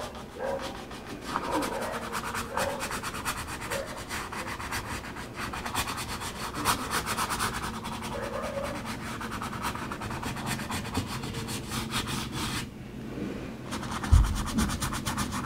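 Stiff bristle flat brush scrubbing acrylic paint across a canvas: a steady scratchy rubbing made of many quick short strokes. It stops for about a second near the end, followed by a soft low thump.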